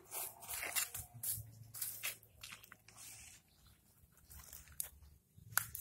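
Fingers digging and scraping through a bonsai pot's gritty, black granular potting mix, giving a run of irregular small crunches and scratches that thin out after the middle.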